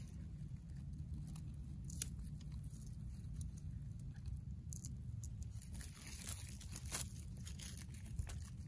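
Scattered crackles and rustles of dry brush and reeds being pushed through on a frozen pond bank, with a few crunches, over a low steady rumble.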